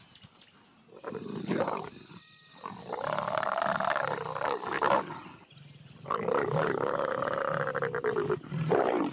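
Leopards growling and snarling while mating. There is a short call about a second in, then two long snarls, each rising and then falling in pitch, starting about three and six seconds in.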